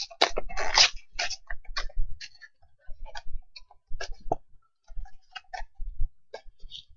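Hands working at a trading-card special edition box's packaging to open it: irregular clicks, taps and crinkles, densest in the first second.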